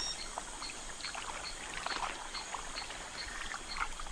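Light, irregular splashing and dripping at a water surface where a tambaqui fish is feeding on fallen fruit, over a high insect chirp repeating about two or three times a second.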